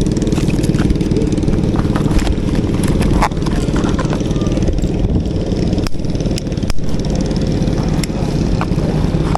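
A small engine running steadily, with a few sharp clicks partway through.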